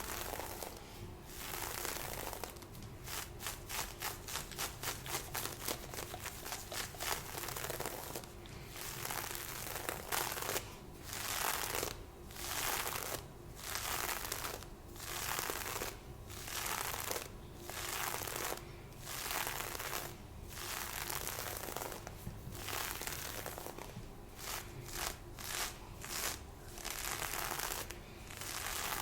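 Lace fishnet stockings being scratched and rubbed in repeated rustling strokes. Quick strokes, several a second, give way after about seven seconds to slower, longer strokes, roughly one a second.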